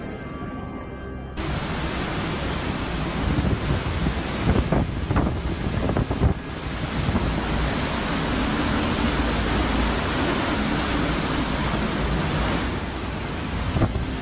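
Hurricane-force wind and driving rain: a dense, steady rush of noise that starts abruptly just over a second in.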